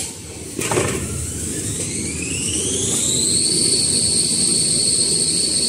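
Point-to-point embossing kitchen towel rewinding machine starting up: a knock at the very start, then the drive comes on about half a second in and its whine rises in pitch for about three seconds as the machine spins up to running speed. It then settles into a steady high whine over a constant rumble.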